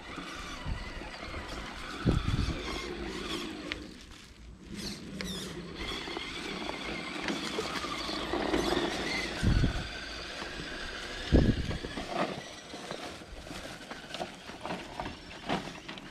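Element RC Enduro Trail Walker scale crawler's electric motor and gearbox whining as it drives, a cluster of steady high tones that fades out near the end. A few low thumps, the loudest about two seconds in and about eleven seconds in.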